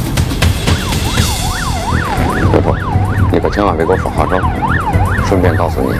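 Electronic sirens wailing in rapid up-and-down sweeps, each under half a second. About halfway through, a second siren joins in with a faster, lower warble.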